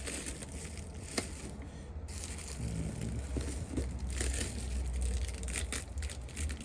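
Packaging crinkling and rustling as small parts are handled and unwrapped, with a few sharp clicks.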